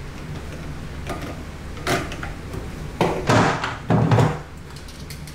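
Handling noises from tightening a drain hose clamp on a garbage disposal's dishwasher inlet: a small click about two seconds in, then two louder scraping knocks about a second apart.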